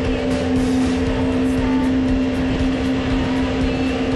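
Mini jet boat's 1053cc Yamaha four-stroke engine running under way at a steady pitch, with rushing river water and spray around the hull.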